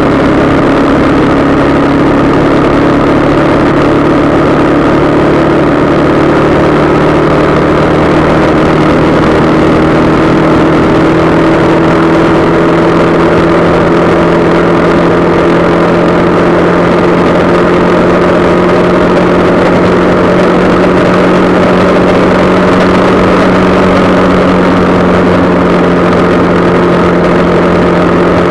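Motorcycle engine running steadily at cruising speed, its note rising slowly and evenly as the bike gains a little speed, under a loud constant rush of wind and road noise.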